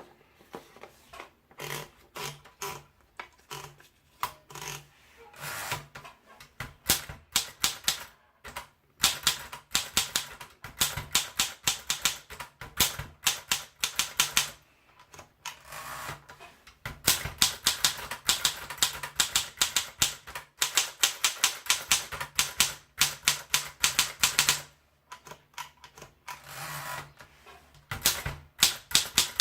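Oliver Courier portable manual typewriter being typed on: rapid runs of sharp key strikes, broken by short pauses.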